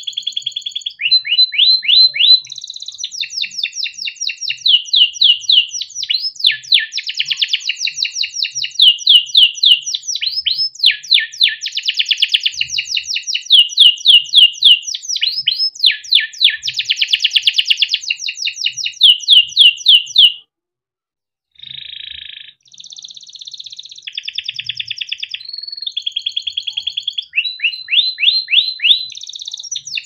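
A young orange canary singing a long, varied song of rapid trills and rolls, fast runs of repeated chirps that change from phrase to phrase. It stops briefly about twenty seconds in, takes up again with softer notes, then breaks back into fast trills near the end.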